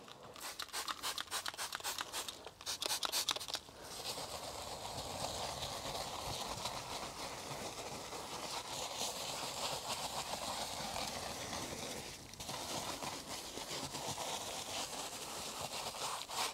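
Detailing brush scrubbing a leather car seat: quick back-and-forth strokes for the first few seconds, settling into a steady scratchy scrub with a short break about twelve seconds in.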